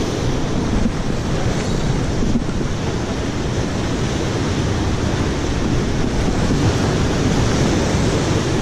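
Rough sea surf breaking on and washing over shoreline rocks: a steady, loud rush of waves with a deep rumble.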